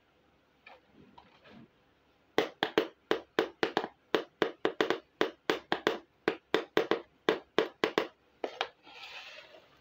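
A quick run of sharp plastic taps and clicks, about four a second, from a small plastic toy hair dryer being handled against a hard surface. A short scraping slide follows near the end.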